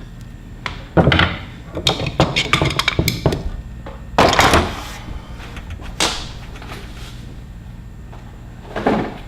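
Hand tools and their packaging being handled on a work surface: a flurry of knocks and clatter, a louder rustle-like burst about four seconds in, then a single thunk near the end.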